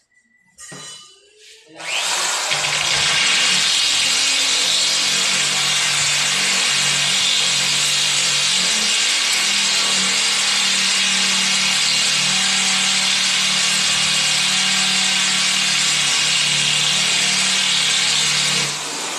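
Corded electric drill running steadily at full speed as it bores down into a mirrored tabletop; it starts about two seconds in and stops shortly before the end.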